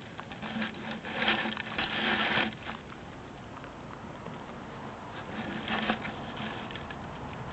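A dog crunching and gnawing on a chicken chew: a dense run of cracking crunches about a second in, lasting about a second and a half, and a shorter burst of crunching near six seconds.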